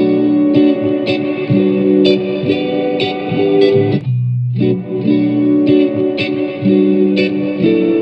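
Guitar phrase of picked notes and chords played through a vintage tube-radio reverb effect. The phrase stops briefly about four seconds in and then plays again.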